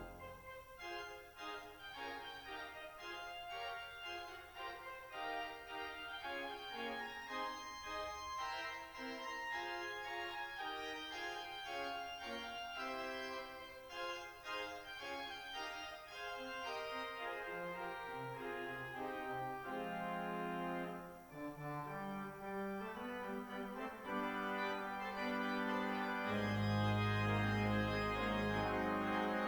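Church organ playing a busy, quick-moving piece mostly in its middle and upper range; about 26 seconds in, deep bass notes come in and it grows louder.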